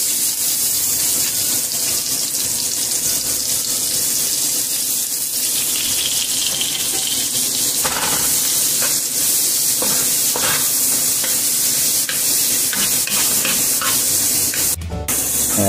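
Sliced onions sizzling in hot oil in a frying pan, a steady hiss. From about halfway through, a wooden spatula stirs and scrapes them in short strokes, and the sound cuts out briefly near the end.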